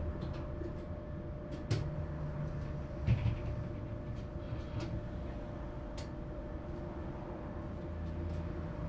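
Inside a Duewag M6D tram: a steady electrical hum with a constant whine and low tones that step up and down, broken by a few sharp clicks and knocks, the loudest about three seconds in.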